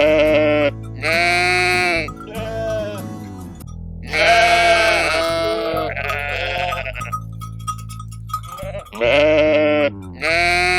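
Sheep bleating again and again, each bleat a wavering call of under a second, over a steady background music track.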